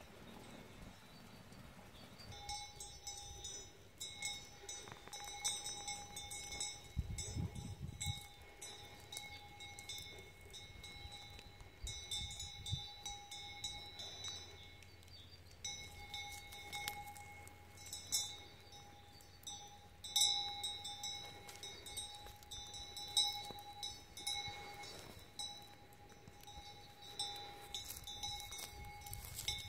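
A metal cowbell on grazing cattle clanking irregularly and ringing, starting a couple of seconds in and going on in uneven bouts.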